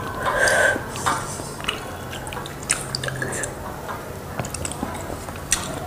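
Fingers scooping soft, wet noodles and egg in a steel bowl: small wet squelches and light clicks against the metal, followed by eating sounds at the mouth.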